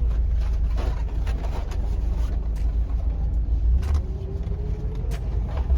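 Tour bus running, heard from inside the cabin: a steady low engine and road rumble with scattered knocks and rattles, and a faint rising whine about four seconds in.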